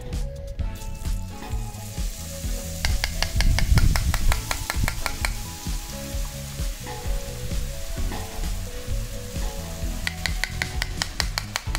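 Boondi batter dropping through a perforated ladle into hot oil in an iron kadai and sizzling as it fries, the hiss swelling about two seconds in. A spoon pressing the batter through the metal ladle makes quick runs of taps, twice.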